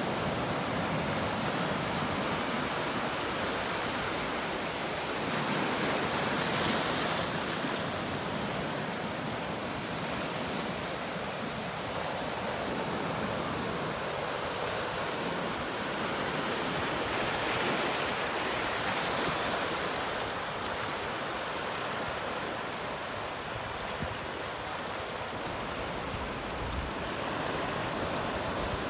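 Ocean surf breaking over a rocky reef shore and washing through the shallows: a steady wash that swells louder about a quarter of the way in and again past the middle.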